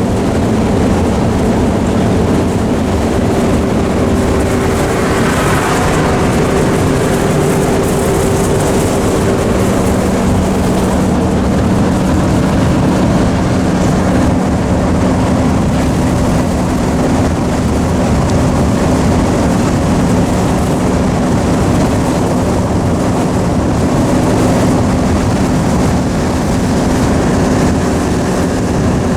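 Steady engine and road noise heard from inside a moving vehicle, with a constant engine hum whose note shifts slightly about ten seconds in.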